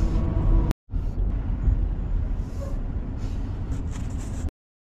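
Road and engine noise heard inside a moving pickup truck's cab: a steady low rumble, with a brief gap just under a second in. It cuts off suddenly near the end.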